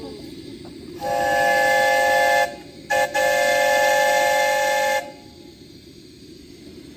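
Miniature ride-on train's whistle sounding three times: a blast of about a second and a half, a short toot, then a blast of about two seconds, over a steady low noise.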